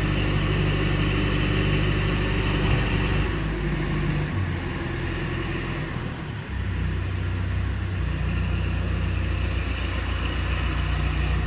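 Machinery running steadily with a low hum; for a few seconds around the middle the hum weakens and changes tone, then settles back.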